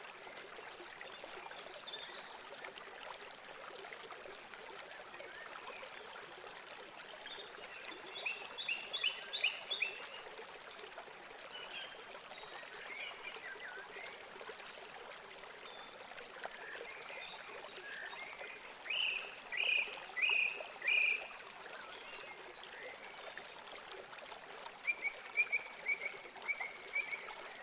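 Steady rush of running water with clusters of quick, high chirping calls every few seconds.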